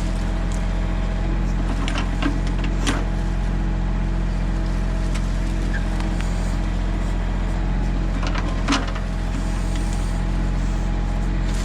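Mahindra tractor's diesel engine running steadily under load, with a few sharp cracks of snapping wood about two seconds in, just before three seconds, and again near nine seconds.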